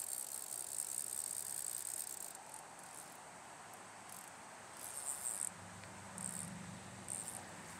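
Insects, crickets by the sound, trilling in one high steady note that breaks off after about two and a half seconds and comes back in short bursts, over the steady rush of stream water.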